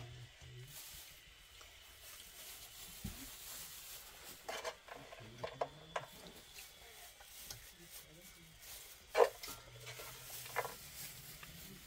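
A metal spoon scraping and knocking against a frying pan as fried food is stirred. It comes as a few short scrapes and clinks, the loudest about nine seconds in.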